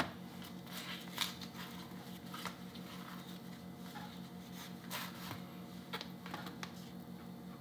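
Hands seasoning and handling raw steaks: scattered soft taps, rustles and squishes of meat and seasoning container, over a steady low hum.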